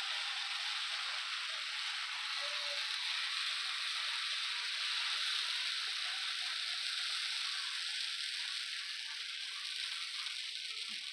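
Pancakes frying on a hot nonstick griddle, a steady high sizzle.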